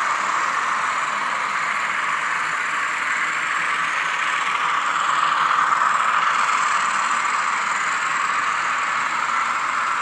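Sound-fitted N gauge models of British Rail class 50 and class 47 diesel locomotives running, their digital sound decoders playing diesel engine thrash through tiny onboard speakers, mixed with the running of the trains on the track. The sound is thin with little bass, and a steady drone that swells slightly around the middle.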